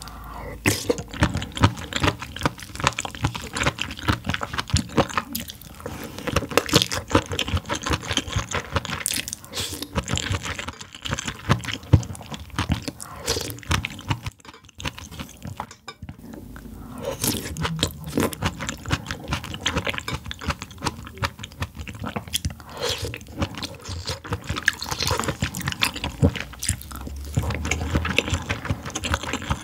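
Close-miked chewing and biting of food, a dense run of quick wet mouth clicks and crunchy bites, broken by a couple of brief pauses about halfway.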